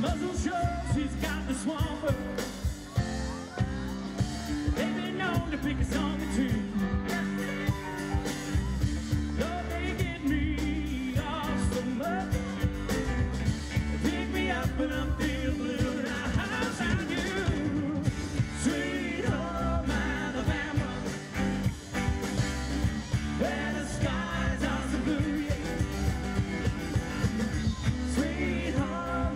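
Live rock band playing a song with a steady beat: a woman singing lead over electric and acoustic guitars, drums and keyboard.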